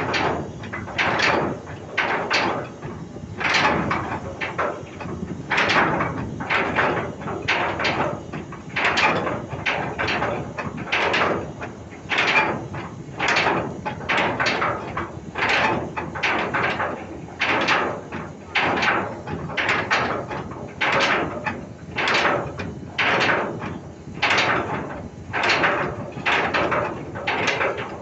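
Ship's anchor chain clanking link by link through the windlass as the anchor is lowered: sharp metal knocks at a steady pace of about one a second, each ringing briefly.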